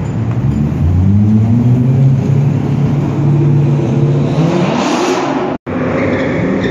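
A car engine revving hard as it accelerates away, its pitch climbing through two long pulls. The sound cuts out for an instant near the end.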